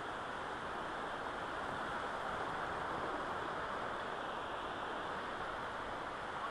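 Steady rushing of water flowing over a flooded concrete ford and spilling off its edge, an even hiss with no breaks.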